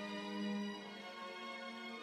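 Slow, sad film-score music: long sustained notes, the melody moving to a new held note about three-quarters of a second in.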